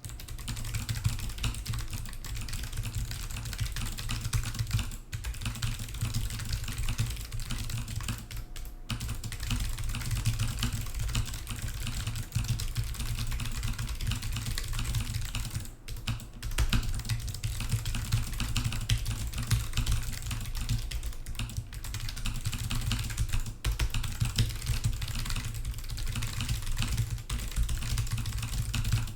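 Fast, continuous typing on a computer keyboard during a timed speed-typing test: a dense patter of keystrokes with a few short breaks, stopping abruptly when the test ends.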